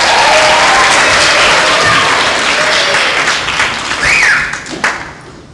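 Audience applauding and cheering, with a few high whoops; the applause dies away near the end.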